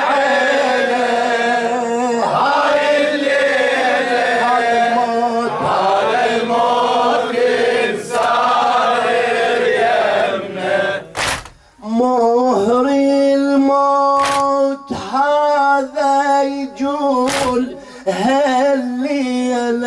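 Shia Muharram lament (latmiya): a crowd of men chanting the refrain in chorus, then from about halfway one man's voice singing a long, held melodic line alone. Sharp slaps, the mourners' chest-beating, land about every three seconds in the second half.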